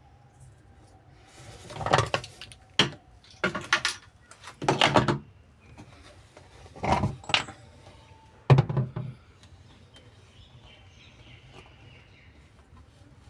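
A series of short clatters and rattles, about six of them spread irregularly, like hard objects being handled and knocked together.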